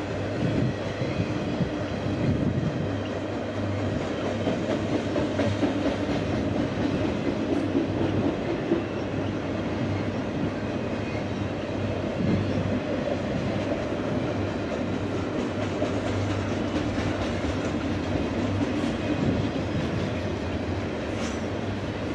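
CSX double-stack intermodal freight train's container well cars rolling steadily past, a continuous low noise of the cars with scattered clicks of wheels on the rail.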